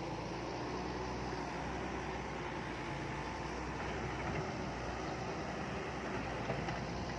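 Diesel engine of heavy earthmoving equipment running steadily.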